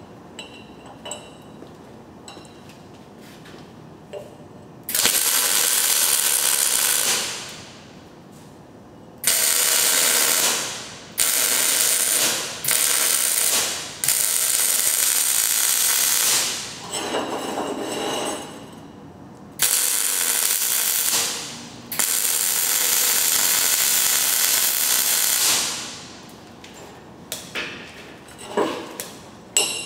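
MIG welding arc sizzling in about seven separate beads of one to four seconds each, stopping and restarting between welds. Light metal clicks and clinks come before the first weld and near the end.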